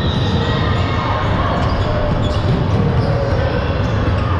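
Indoor basketball game noise: a ball bouncing on the court under a steady din in a large hall, with short high squeaks mixed in.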